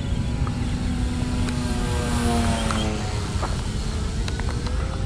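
Electric motor and propeller of a Top Flite P-40 RC plane whining as it flies past overhead, the pitch sliding down as it goes by, then rising again near the end. A steady low rumble runs underneath.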